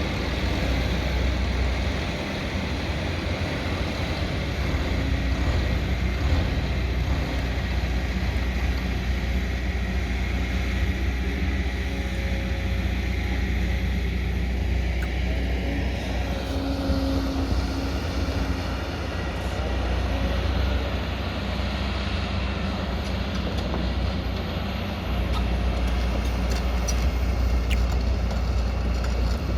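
Diesel engine of a 22-tonne-class crawler excavator working, a steady low drone, with brief whining tones midway and the engine growing louder about 25 seconds in.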